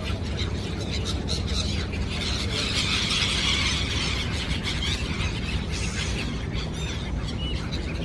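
A flock of gulls calling over water: many short, high, overlapping calls, densest about two to four seconds in. A steady low hum runs underneath.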